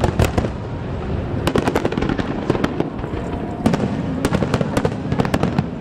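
Aerial fireworks display firing in a dense barrage: a continuous low rumble of shell bursts with clusters of sharp crackling reports in quick succession.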